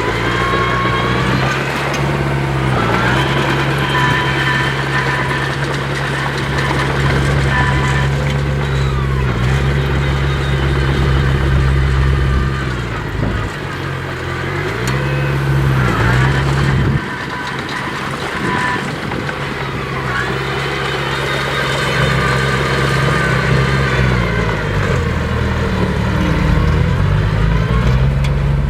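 Heavy diesel earthmoving machinery, bulldozer and dump trucks, running under load. Engine speed dips and recovers several times, with a whine that rises and falls alongside it, and the sound changes abruptly partway through.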